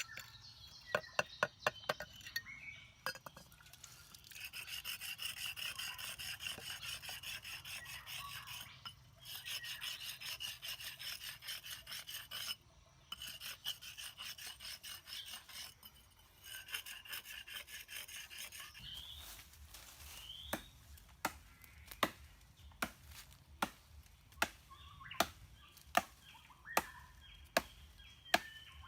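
Rapid rubbing strokes of something being worked against an abrasive surface, a rasping sound that runs for about fifteen seconds with short breaks. After that comes a steady series of sharp knocks, about one a second.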